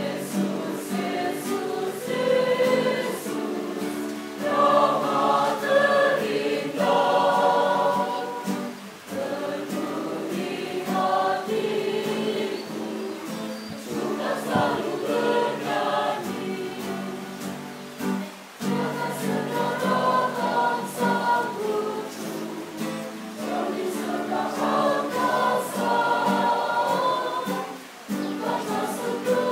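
Mixed choir of young men and women singing a Christian song in long sustained phrases with brief breaks, accompanied by an acoustic guitar.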